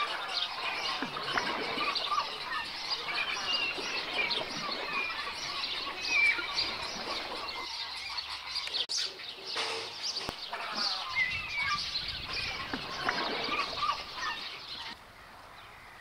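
Many birds calling at once: a busy chorus of short chirps and calls that overlap throughout and thin out near the end.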